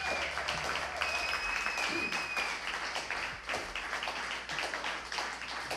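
Audience applauding after a song, with one long high whistle from the crowd about a second in.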